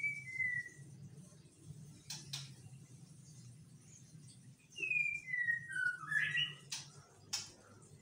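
Caged white-rumped shama singing: a short phrase of two clear, falling whistled notes at the start, then about five seconds in a longer run of clear whistles stepping down in pitch, ending in a quick rising flourish. A few sharp clicks fall between the phrases over a faint low hum.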